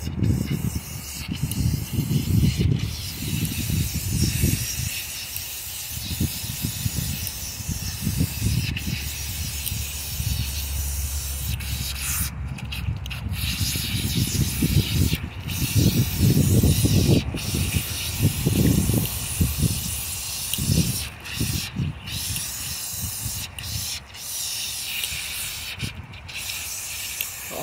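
Steady hiss of water running from a garden hose, with rubbing as hands scrub a dog's wet, soapy coat. Irregular low rumbles come and go.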